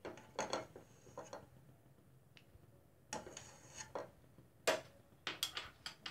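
Metal spoon clinking and scraping against a small ceramic bowl and a non-stick kadai as spoonfuls of ghee are scooped out and knocked into the pan: light taps in three clusters, at the start, just after the middle, and near the end.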